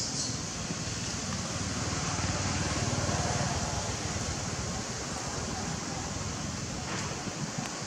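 Wind buffeting the microphone: a gusting, rumbling noise under a steady high hiss.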